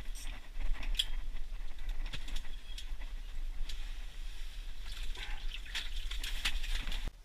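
Rustling of clothing and scattered clicks and knocks from people handling gear in an ice-fishing shelter while a line is hauled up by hand through the hole, over a steady low hum. The sounds grow busier near the end, then cut off suddenly.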